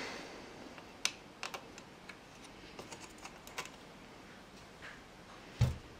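Fingers and fingernails working at a freshly trimmed plastic motherboard front-panel header, giving scattered small sharp plastic clicks and taps, with one louder, duller knock near the end.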